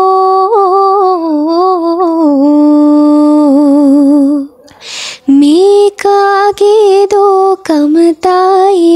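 A girl singing a Sinhala ploughing song unaccompanied, drawing out long wavering notes on the vowels. About four and a half seconds in she pauses for a breath, then goes on in shorter, broken phrases.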